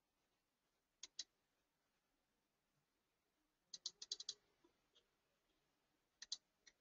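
Faint clicks from a computer mouse and keyboard: a double click about a second in, a quick run of about six clicks a little past halfway, and another double click with a single click near the end.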